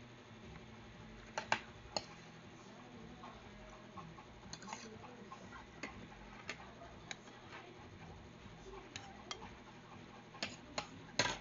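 Scattered, irregular sharp clicks and taps of someone eating a meal, with a few louder knocks about a second and a half in and near the end.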